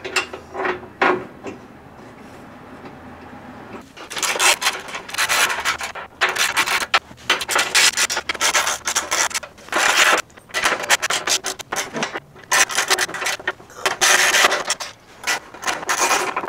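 Ratchet wrench clicking in quick back-and-forth strokes as skid plate bolts are run in, starting about four seconds in, after a few light knocks of metal.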